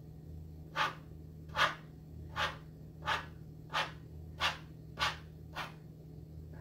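Hands pinching and crimping the edge of a filled dough round, a short rubbing stroke about eight times, roughly one every 0.7 s, over a low steady hum.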